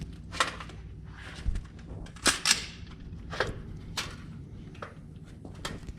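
Irregular gunfire at a shooting range: about eight sharp shots at uneven spacing, two of them in quick succession a little past two seconds in.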